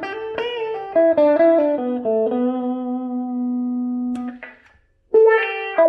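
Electric guitar played through a Dunlop Cry Baby wah pedal, its tone sweeping as the treadle rocks, on test after its dirty footswitch was replaced. Picked notes give way to one note held for about two seconds, then a sharp click and about a second of silence before the playing starts again.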